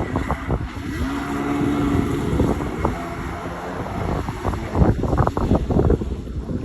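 Kawasaki 650 SX stand-up jet ski's two-stroke engine running on the water, buried under heavy wind buffeting on the microphone, with irregular thumps and splashes.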